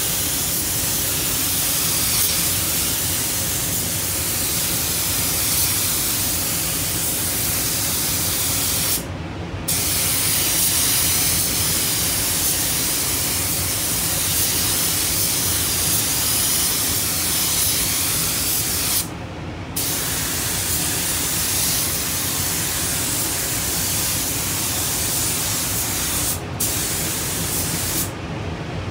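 Compressed-air paint spray gun spraying clear coat, a steady hiss of air and atomised paint. It breaks off for about half a second three times as the trigger is released between passes, and drops away near the end.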